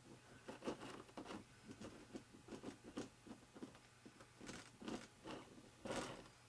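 Faint, irregular ticks and scratches, a few a second, as the tip of a plastic CA glue bottle is dabbed and drawn along fibre tape on the wing to tack it down, with a longer rustle near the end.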